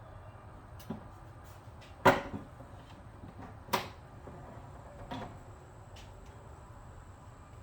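Sharp plastic clicks and knocks, five in all and loudest about two seconds in, as the liftgate trim cover's push rivets are worked and pressed into their holes.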